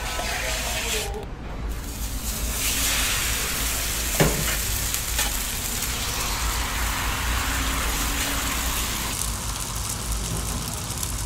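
Beaten egg sizzling on a hot, oiled flat-top steel griddle; the hiss swells about two seconds in and keeps going. Metal scrapers work the egg across the steel plate, with one sharp metal clack about four seconds in.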